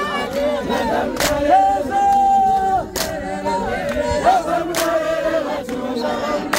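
A large congregation singing together as a choir, with one voice holding a long high note about a second and a half in. Sharp beats keep time about every two seconds.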